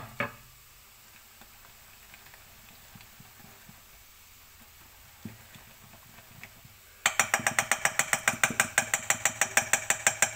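A whisk beating pancake batter in a bowl: a fast, even run of clinking strokes, about six a second, starting about seven seconds in after a quiet stretch with a few faint clicks.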